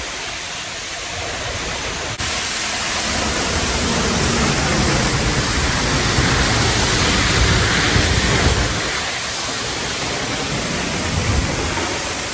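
Steady rushing of a large waterfall, a dense even noise that gets abruptly louder about two seconds in.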